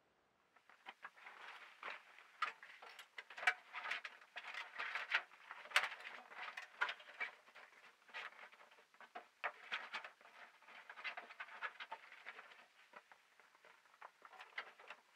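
Rustling and crinkling of a fabric snowmobile cover being dragged and pulled over a snowmobile: irregular crackles and rustles that come and go throughout.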